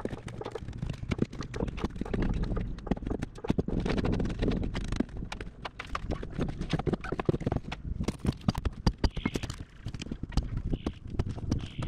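A long steel bar being driven and levered into a boat's rotted transom plywood and surrounding fiberglass, giving many irregular sharp knocks, cracks and scrapes as the rotten wood breaks out.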